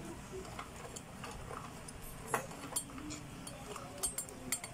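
Scattered light clicks and clinks of a small metal washer and screw being fitted at the hub of a child's tricycle front wheel, with one sharper click a little past halfway.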